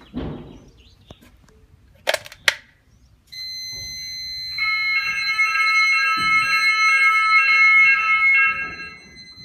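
Fire alarm sounders of a type 1 fire alarm system going off in a test. Two sharp clicks come about two seconds in. A second later a steady high tone starts, and a loud pulsing multi-tone alarm signal joins it, running until just before the end.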